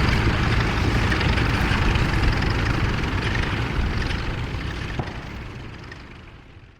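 Vintage tractor engine running steadily, with a single click about five seconds in; the sound fades away towards the end.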